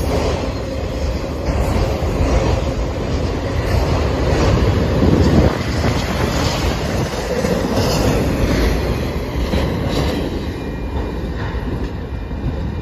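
Empty freight autorack cars rolling past, their steel wheels rumbling steadily on the rails.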